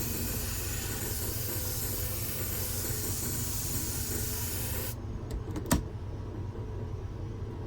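Curved grooming shear blade being ground on a shear-sharpening machine, a steady hiss of steel on the abrasive that stops abruptly about five seconds in as the blade comes off. A few sharp clicks follow while the machine's low hum keeps running. The grinding is meant to raise a burr along the whole edge.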